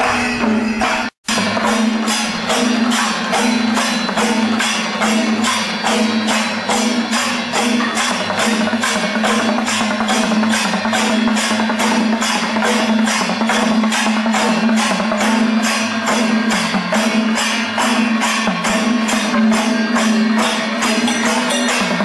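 Percussion music with drums and jangling, clashing strokes in a steady beat of about two or three a second, over a held drone tone. The sound cuts out for a moment about a second in.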